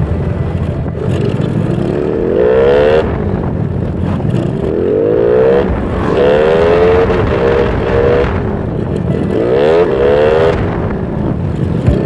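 Motorcycle engine accelerating, its pitch climbing several times as it pulls up through the gears, over steady wind rumble on the microphone.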